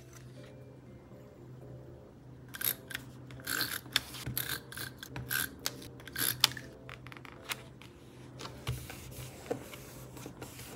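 Paper stickers and sticker sheets being handled on a notebook page: a run of short rustling scrapes and light taps, most of them in the middle stretch, over faint soft background music.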